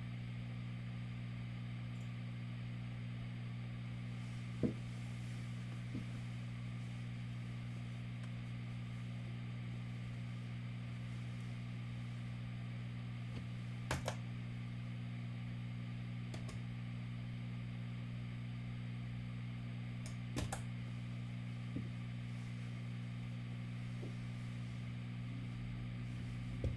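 Room tone dominated by a steady low electrical-sounding hum, broken by a few short clicks or knocks, the sharpest about five seconds in and others around fourteen and twenty seconds in.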